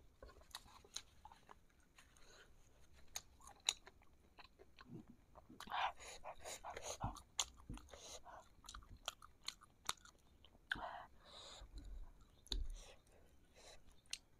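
Close-up chewing of sauce-coated fried meatballs, with many small sharp mouth clicks at an irregular pace and a few louder moments.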